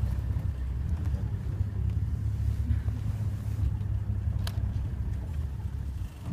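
Open safari vehicle driving, its engine and drivetrain a steady low rumble that eases near the end, with one sharp click about four and a half seconds in.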